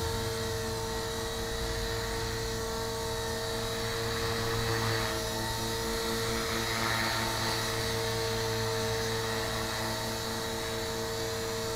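Tarot 450 Pro V2 electric RC helicopter hovering: a steady, high whine of the motor and drivetrain with the main rotor running, its blades tracking well.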